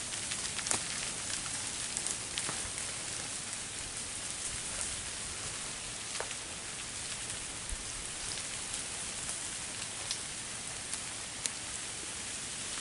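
Freezing rain falling steadily through ice-coated trees, an even hiss with scattered sharp ticks of drops and ice striking branches and leaf litter.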